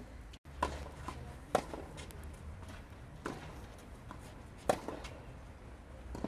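Tennis ball struck by rackets in a rally: five sharp pops about every second to second and a half, over a low steady rumble.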